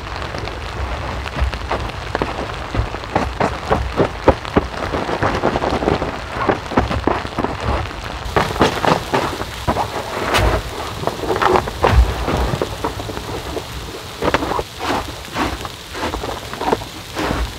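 Rain falling, with many irregular drops pattering and thudding close by on a surface. A finer hiss of rainfall grows about halfway through.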